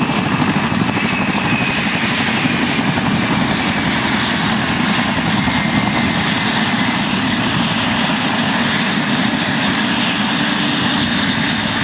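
Mi-2 helicopter's twin turboshaft engines and main rotor running steadily on the ground, a high turbine whine over the beating of the rotor.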